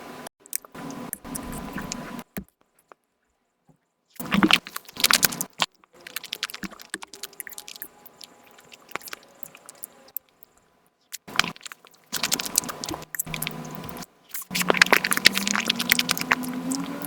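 Eating sounds played at ten times speed: rapid crunching and chewing of Nutella pancake crepes in choppy bursts, with sudden cuts to silence between them.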